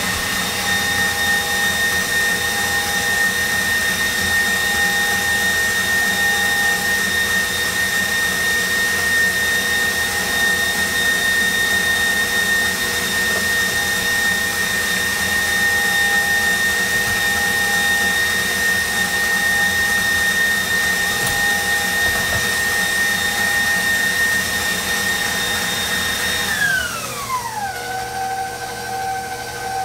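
KitchenAid bowl-lift stand mixer running at high speed, its wire whisk beating a foamy egg-and-sugar sponge-cake batter with a steady motor whine. Near the end the whine falls in pitch and settles lower as the mixer slows to a lower speed.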